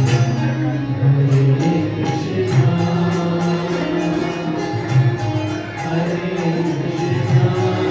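Devotional kirtan: chant-style singing with long held notes over a steady, quick beat of small hand cymbals.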